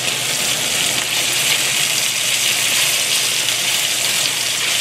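Elk steaks frying in olive oil, garlic and butter in a hot cast-iron skillet, a steady sizzle that holds even throughout.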